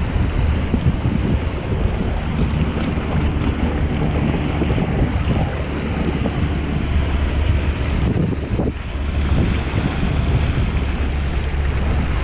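Wind buffeting the microphone over the steady rush and splash of water along the hull of a sail-rigged kayak moving under sail.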